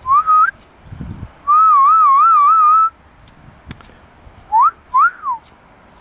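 A person whistling: a short rising note, then a long wavering note of about a second and a half, then two quick upward-sweeping notes.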